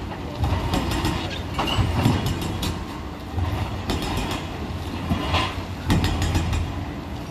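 Excavator demolition attachment breaking up concrete, with irregular metallic clanks and crunches of concrete and rebar. The excavator's diesel engine runs underneath and swells at times under load.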